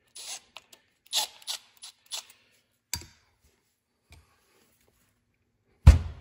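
Handling noise as an LS cylinder head is picked up and turned over: a run of short scrapes and clicks, then a loud, deep thump near the end.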